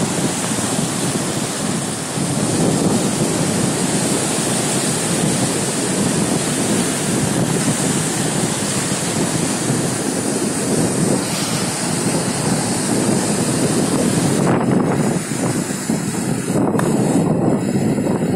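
Rushing river water released from the Tungabhadra Dam's open spillway gates, churning in rolling standing waves over a flooded bank, with wind buffeting the microphone. The sound is a steady, loud rush, and its highest hiss thins out about fifteen seconds in.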